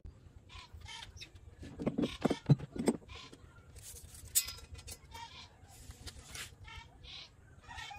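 Quiet, scattered handling sounds of tools on a wooden workbench as a tape measure and ruler are picked up: light knocks and clicks, with a short cluster of louder knocks about two to three seconds in.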